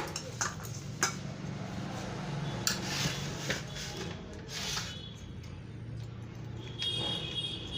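Sharp metallic clicks and light scraping of a screwdriver working the nuts that hold a heatsink on an amplifier board, with a brief high squeak near the end, over a low steady hum.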